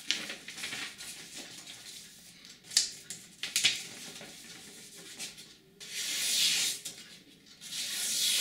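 A freshly sharpened knife blade slicing through a hand-held sheet of paper, with the paper rustling: two quick sharp cuts, then longer swishing slices near the end. The cuts test the new edge.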